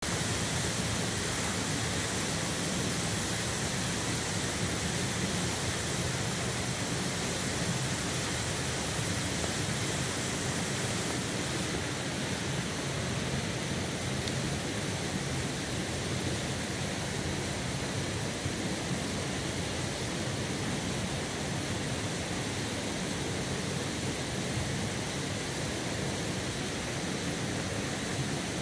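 Steady rushing of a mountain stream: an even wash of flowing water with no changes.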